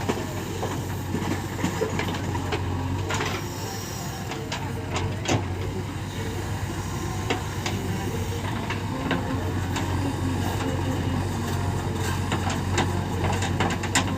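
Heavy diesel machinery running steadily with a low hum, with scattered sharp knocks and clanks throughout, consistent with a backhoe loader working beside tractors.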